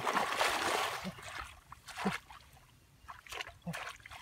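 Shallow muddy water splashing and sloshing as a person wades in and gropes through it by hand, loudest for the first second, then a few small separate splashes.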